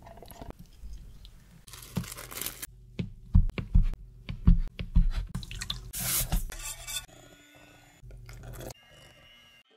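A spatula stirring and scraping thick pistachio paste in a plastic cup, then a knife slicing a block of butter on a plastic cutting board, the blade knocking on the board several times.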